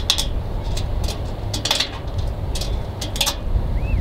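Wind rumbling on the microphone, with a string of sharp, irregular clicks and clinks, about eight in all.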